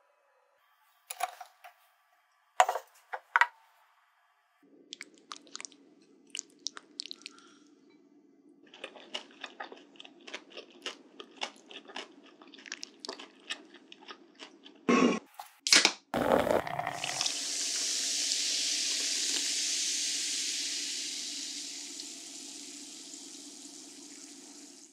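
Crisp crunching of cabbage and cucumber salad, many quick crunches over a low hum, then a couple of loud knocks and beer fizzing hard in a glass, the fizz slowly dying down.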